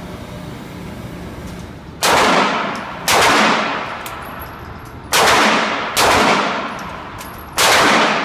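Five shots from a .40 caliber Smith & Wesson pistol fired at an uneven pace, each a sharp crack followed by a ringing tail that fades over most of a second.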